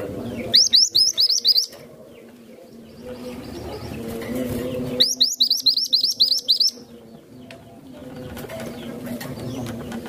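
Mantenan gunung, a small yellow-and-black minivet, singing two quick trills of rapid, high, rising whistled notes. The first comes about half a second in and the second, longer one about five seconds in.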